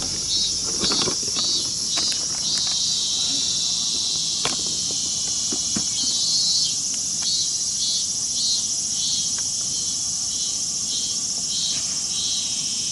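Steady high-pitched insect chorus, joined about halfway through by a pulsing insect call repeating about twice a second. A few light clicks and knocks come in the first half.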